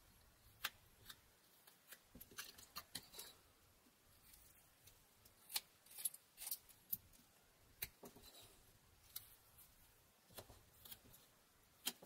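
Pocket knife blade slicing small chips off a pine carving: faint, irregular short crisp snicks, some single and some in quick clusters, a second or so apart.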